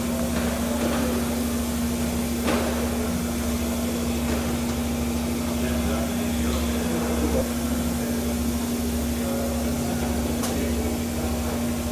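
Steady machine hum with a single held tone, over a low rumble, with a couple of faint clicks.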